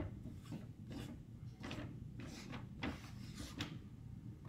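Marker writing on easel chart paper, heard as a series of short, faint pen strokes while a word is written out.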